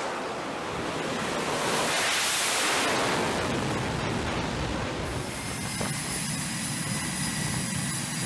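Fighter jet engines at full thrust during an aircraft-carrier catapult launch: a loud rushing roar that swells to a peak about two to three seconds in and then eases. From about five seconds on, a steadier rushing noise with a thin high whine.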